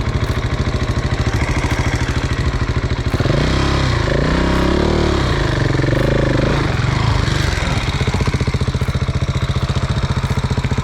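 KTM 690's single-cylinder engine running at low revs under load on a steep climb, its firing pulses coming fast and even. In the middle few seconds the pitch rises and falls as the throttle is worked.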